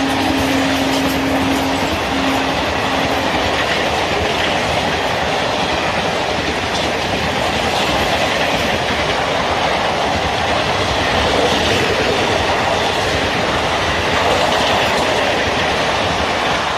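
Indian Railways passenger coaches passing close by at speed: a loud, steady rush of steel wheels on rail with clickety-clack over the rail joints. The electric locomotive's horn is still sounding at the start and stops after two or three seconds.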